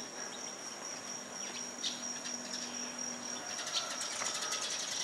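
Insects trilling steadily on one high, thin note, with scattered short high chirps that grow busier in the second half.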